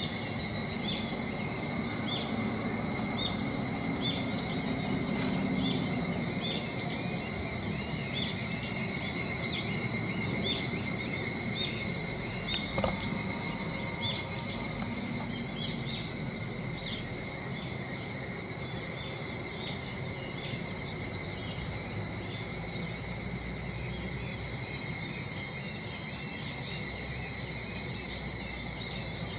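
A chorus of cicadas buzzing steadily at several high pitches. About a third of the way through it swells into a louder, fast-pulsing stretch for a few seconds, then settles back. Short high chirps repeat through it roughly once a second.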